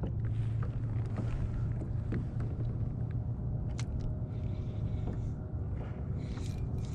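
Open-water ambience from a fishing kayak at sea: a steady low rumble with a few faint clicks and taps.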